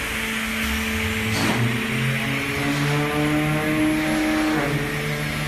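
Molding machine running: a motor whine that steps up in pitch in stages over about four seconds, then holds, over a steady hiss of machinery noise.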